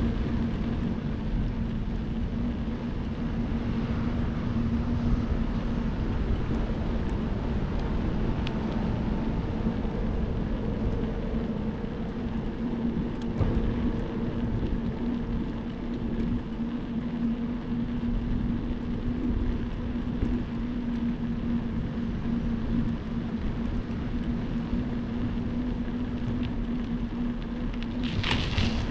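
Wind rushing over the microphone of a camera riding along on a moving bicycle, with a steady low hum from the ride. A brief louder hiss comes near the end.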